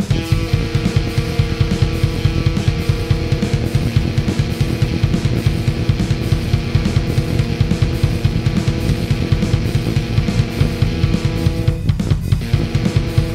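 Heavy metal music with fast, dense drumming and bass drum under sustained distorted guitar chords, with a brief break near the end.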